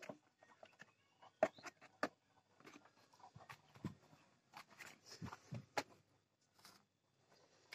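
Faint, scattered knocks, clicks and rustles of handling while eggs are gathered from a sack-lined nest in a chicken coop.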